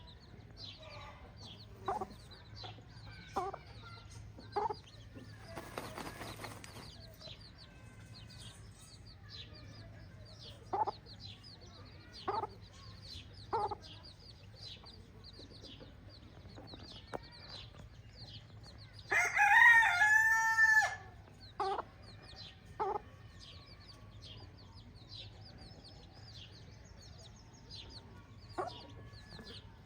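Chickens clucking in short calls scattered through, with a rooster crowing once, loudly, about two-thirds of the way in. A constant chorus of high chirps runs underneath.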